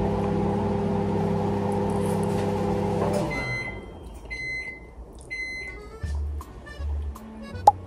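Microwave oven running with a steady hum that stops about three seconds in, followed by three short high beeps about a second apart signalling it has finished. Background music with a soft regular beat carries on after, with one sharp click near the end.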